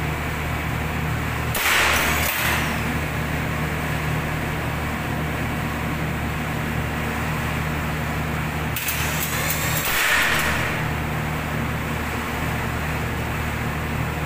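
Standby generator set running with a steady drone. Two short bursts of clicking and hissing, each about a second long, stand out over it, one about two seconds in and one about nine seconds in.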